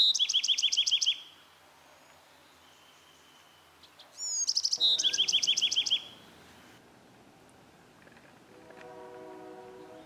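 Bewick's wren singing two song phrases about four seconds apart. Each phrase is a few high opening notes, then a fast trill, then a second trill lower in pitch. A faint, steady low droning tone is in the background near the end.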